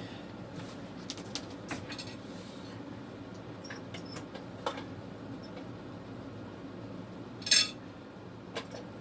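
Cutlery clicking and scraping against a plate during eating, in scattered light strokes over a steady low hum. One louder, short sound comes about seven and a half seconds in.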